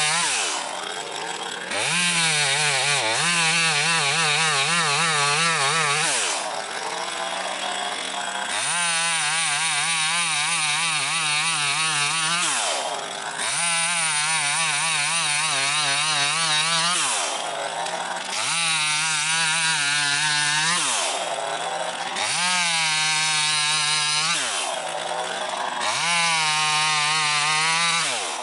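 HAIGE HG-TM32500A 25.4cc two-stroke chainsaw revved hard in bursts of a few seconds, its pitch wavering under load, then dropping back to idle between them, about six times over: cutting through logs for firewood.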